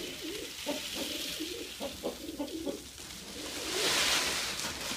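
Pigeons and doves cooing, many short overlapping calls, with a rustling noise swelling about four seconds in.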